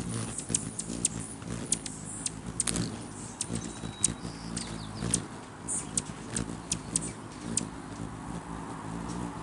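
Rufous hummingbirds hovering and squabbling around a feeder: a low, wavering hum of beating wings under many quick, sharp, high chip calls.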